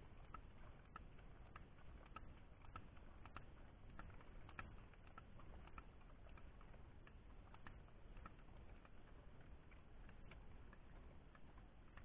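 Faint, irregular clicking from a Katadyn Hiker Pro hand filter pump being worked to pump filtered water into a bottle. The clicks come a few times a second and thin out in the second half.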